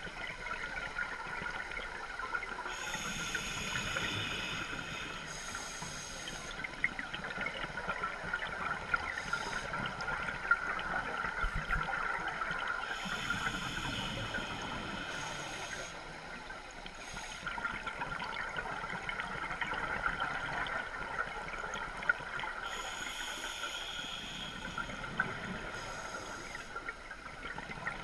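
Scuba diver breathing through a regulator, heard underwater: three breaths about ten seconds apart, each a pair of rushing, bubbling sounds, over a steady hiss.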